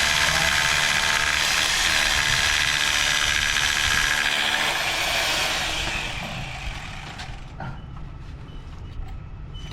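Heavy engine running loud with a steady hum, dying down over a couple of seconds about halfway through and leaving a lower rumble.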